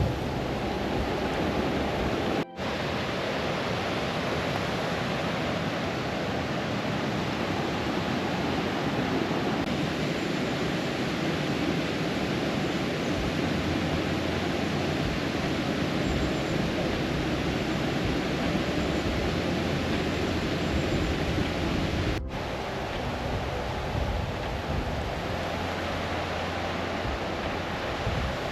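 Steady rushing of running water from a moorland brook, an even noise with no distinct events, dropping out for an instant twice.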